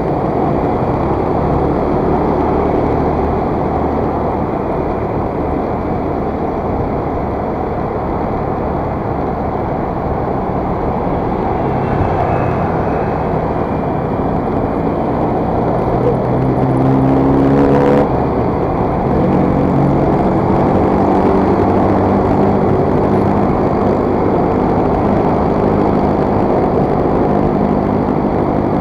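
Motor scooter on the move: steady wind rush on the microphone over the engine's running note, which rises as the scooter accelerates a little after halfway, then runs on steadily.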